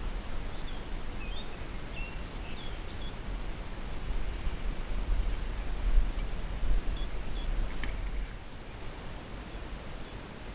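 Outdoor ambience: a steady low rumble and hiss, with a few short high chirps in the first three seconds and a single brief click near eight seconds.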